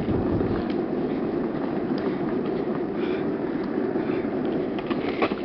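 Office chair casters rolling over rough, cracked asphalt: a steady rumble with scattered rattling clicks, and a sharper knock about five seconds in.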